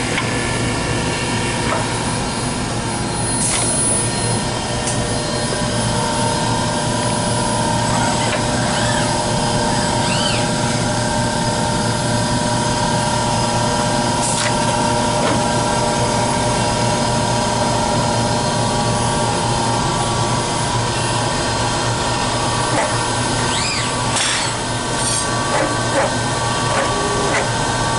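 An automated grinder-loading cell running: a steady machine hum with many held tones and a few light clicks. Short rising-and-falling servo whines from the robot arm moving come about nine seconds in and again near 24 seconds.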